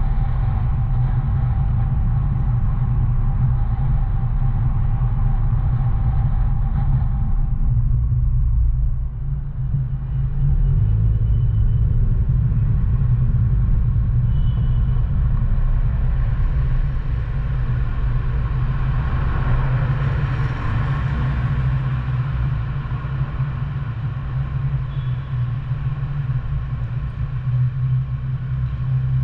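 Steady low road rumble of a car driving through city streets. A hiss swells and fades around two-thirds of the way through.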